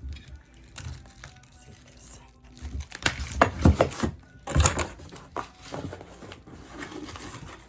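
Plastic zip ties being cut off a balance bike: a few sharp snips about three to five seconds in, amid rustling and handling noise.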